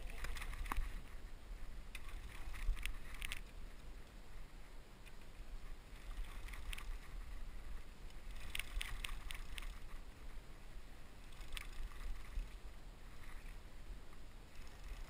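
Wind rumbling on the microphone and water slapping against a small boat's hull, with several short runs of sharp clicking.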